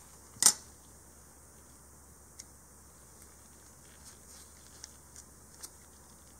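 A small plastic hand tool set down on a cutting mat with one sharp clack about half a second in, followed by a few faint, scattered ticks of small tools and aluminium parts being handled.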